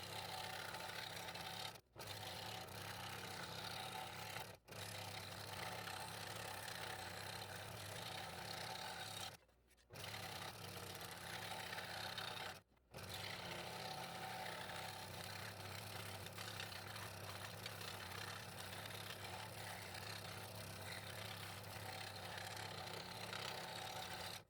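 Scroll saw running and cutting through thin wood fretwork, a steady motor hum under the blade's scraping. The sound drops out abruptly four times and resumes each time.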